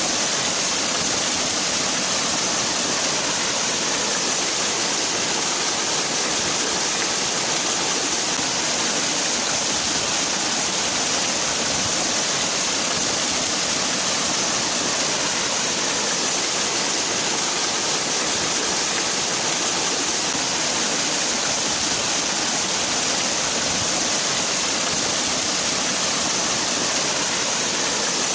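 Waterfall: water falling steadily in an even, constant rush with a strong hiss.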